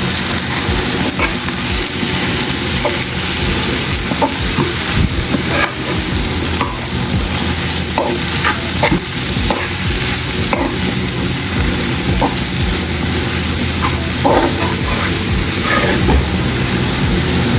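Vegetables sizzling as they fry in a pot, with a spoon scraping and knocking against the pot now and then as they are stirred.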